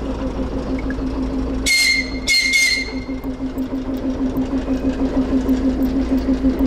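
DR1A diesel railcar's engine running with a steady pulsing beat, cut by two short high-pitched whistle blasts about two seconds in; the engine grows louder through the second half.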